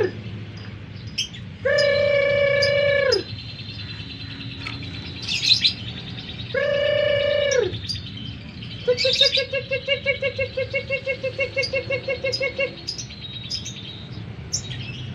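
Lovebird chirping in short, high notes. Two long, steady whistle-like tones sound about two and seven seconds in, each dropping in pitch as it ends. From about nine seconds in comes a rapid pulsed trill of roughly ten notes a second, lasting a few seconds.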